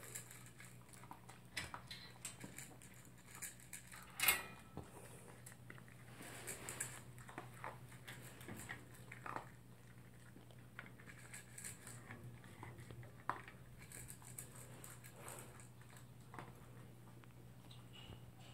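A toy poodle eating dry kibble from a bowl: faint, scattered crunches and clicks of kibble against the bowl, with one louder clack about four seconds in.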